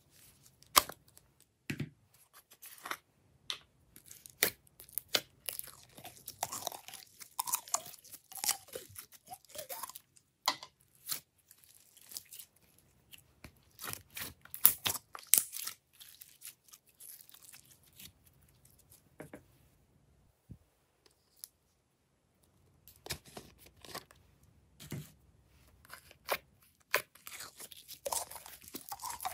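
Glossy slime being squeezed, stretched and pressed by hand: irregular sticky clicks, pops and crackles, with a quiet pause of a few seconds past the middle.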